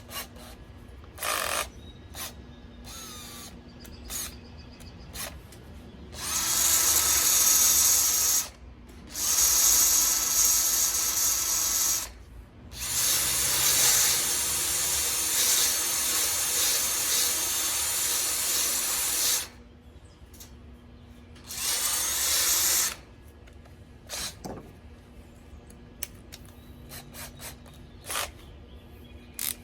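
A power tool spinning a wire wheel against steel, run in four bursts lasting from about one and a half to seven seconds, with a few light knocks in between. The wheel is scrubbing the metal clean ahead of welding.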